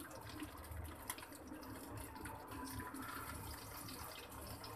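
Chicken stick kebabs frying in hot oil in a pan: a low, steady sizzling hiss with a few small crackles.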